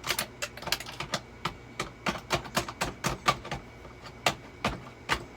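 Rapid, irregular clatter of small hard objects: sharp clicks and taps several times a second, the loudest about three seconds in.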